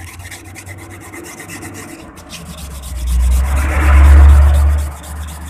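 Scraping and sanding of leftover glue off a car's metal cabin roof panel, in quick repeated strokes. A much louder low rumble swells about three seconds in and fades about two seconds later.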